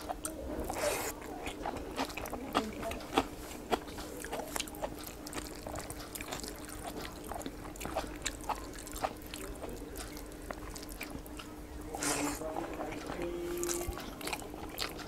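Eating sounds: chewing and mouth noises with many small clicks, and a metal spoon scraping and clinking against a ceramic bowl as curry is spooned onto the plate, over a faint steady hum.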